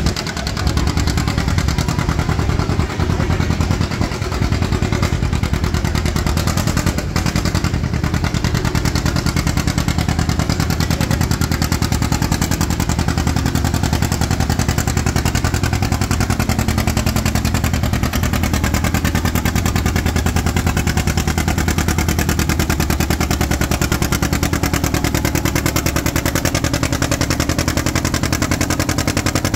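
Old green John Deere two-cylinder tractor engine under load pulling a weight sled, its exhaust making a rapid, even popping beat that holds steady throughout.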